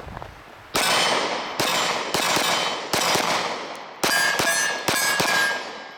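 A string of eight 9mm shots from a SIG Sauer P365 micro-compact pistol, fired at an uneven pace, each crack trailing off in a long decay, with a metallic ringing tone under the last few shots.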